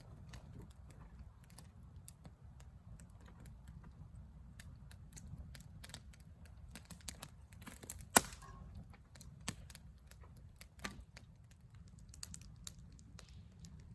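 Campfire crackling: irregular small snaps and pops, with one louder pop about eight seconds in.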